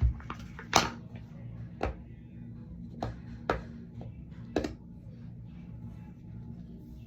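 Slime being squeezed and pressed by hand, giving about five sharp, short pops and clicks over the first five seconds.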